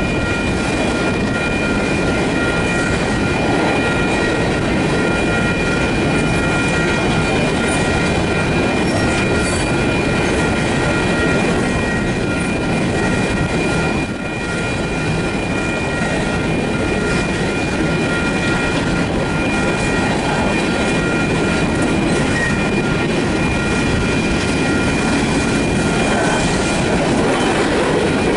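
Empty coal train hopper cars rolling past on the rails: a steady noise of wheels on track, mostly low in pitch, with a few steady high-pitched ringing tones running over it.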